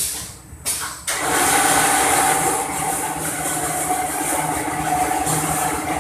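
Paper rustling as a large printed sheet is handled, then from about a second in a laminating machine running with a loud, steady mechanical hiss and hum.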